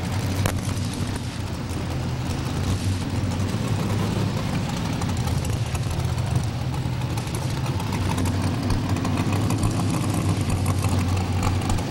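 Big-block Chevrolet engine of about 700 cubic inches in a 4x4 modified pulling truck running steadily at a low, even speed after its pull, with the arena's steady background noise underneath.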